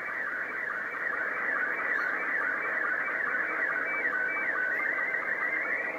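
Slow-scan TV (SSTV) picture signal received on an Alinco DX-SR8T HF transceiver: a continuous warbling stream of high tones that step and slide rapidly between a low sync tone and a band of higher picture tones.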